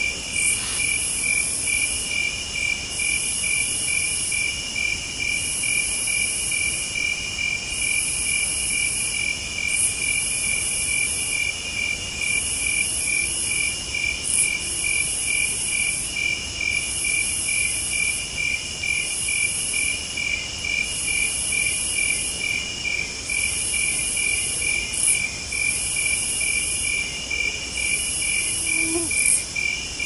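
Crickets and other insects chirping in a steady chorus. One insect keeps up an even, rapid pulsing chirp, while a higher buzzing trill comes in repeated bursts of about a second with short gaps.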